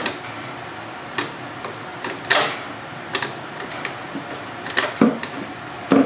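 Irregular sharp clicks and knocks from hands and tools working on a garden tractor's transmission shifter, about eight in all, the loudest a little over two seconds in with a short ring after it.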